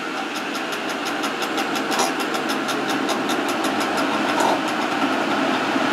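Gilera Runner scooter's 172 cc Malossi two-stroke engine running steadily on the dyno rollers just after a full-throttle power run.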